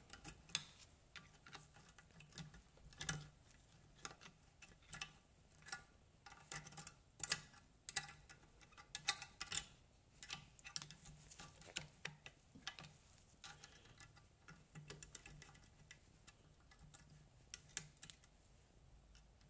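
Light, irregular metallic clicks, taps and scrapes of a hand tool working on the rear hub of a Suzuki LT50 quad, working loose bits from around the bearing, with a few sharper taps among them.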